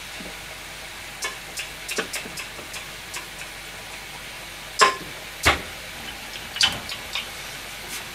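Karaage deep-frying in a saucepan of hot oil: a steady sizzle scattered with small crackles, and two louder sharp clicks about five seconds in, half a second apart.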